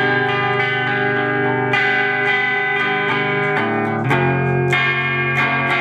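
Electric guitar through a TS-9 Tube Screamer–style overdrive pedal driving a tube amp's clean channel into overdrive. Chords are strummed and left to ring, changing every second or two, with the pedal's tone control rolled back to take the edge off the highs.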